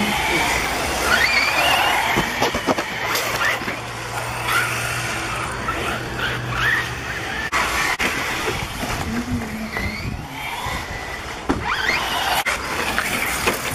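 RC buggy motors whining, the pitch rising and falling again and again as the cars accelerate and brake through a rough dirt section. A few sharp knocks come as they land and hit the bumps.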